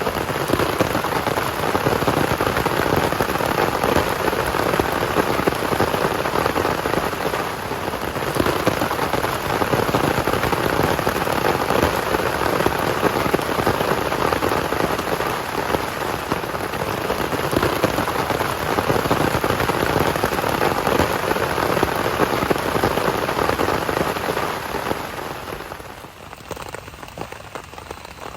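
Heavy rain falling, a dense steady patter that drops off sharply near the end.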